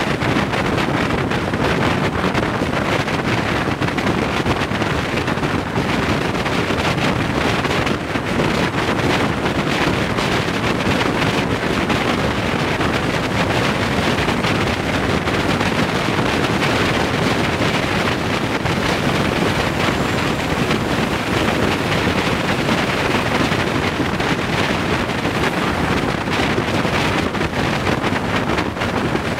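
Steady rushing wind and road noise from a vehicle travelling at freeway speed, with wind buffeting the microphone.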